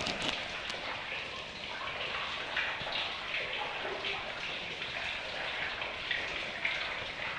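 Small cave waterfall splashing: a steady rush of falling water with little irregular splashes.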